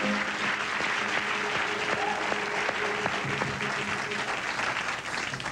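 Studio audience applauding, with the house band's music playing beneath.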